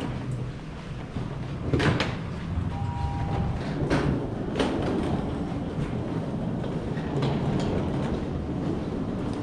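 Hard-shell rolling suitcases pulled across a hard floor: a steady rumble of small wheels, with a few sharp clacks as they cross joins in the floor. A short two-tone beep sounds about three seconds in.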